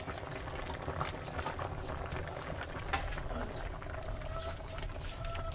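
Fish and vegetable broth simmering in a wok over a wood fire: a steady bubbling with many small pops.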